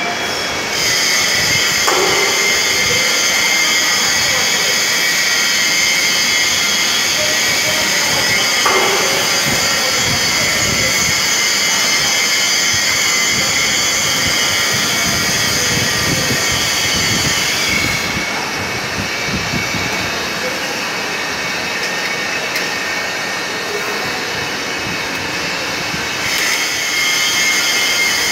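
Proton 50 kg mass mixer running, its drive motor turning the paddles through powder in the stainless-steel trough: a steady mechanical noise with several high whining tones. The highest tones fall away about eighteen seconds in and come back near the end, and two short falling squeaks come at about two and nine seconds.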